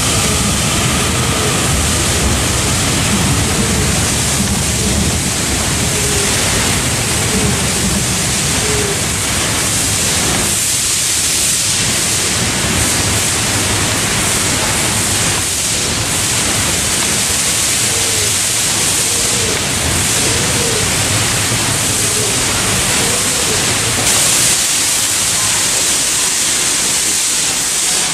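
Class 444 electric multiple unit running along the platform, a steady rushing rumble of its traction equipment and wheels on the rails. The low rumble eases off about halfway through, leaving a broad hiss.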